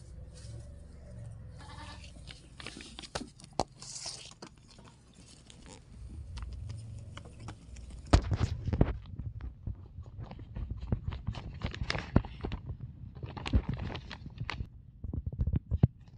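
Tokay gecko giving short bleat-like distress calls while being handled, its mouth gaping defensively. Rustling, crunching and sharp clicks of handling run through it, loudest in the second half.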